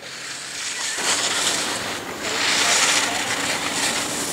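Skis scraping over hard-packed snow through slalom turns: a hiss that swells about a second in and again just past two seconds.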